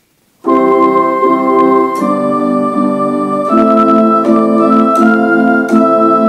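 Organ playing sustained chords, starting suddenly about half a second in, with the chord changing about every second and a half.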